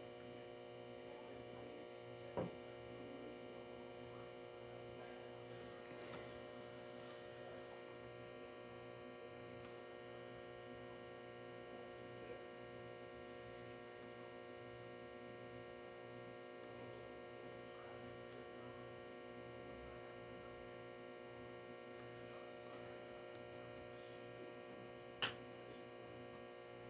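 Steady electrical hum made of several constant tones, low in level, with two brief light taps: one a couple of seconds in and a sharper one near the end.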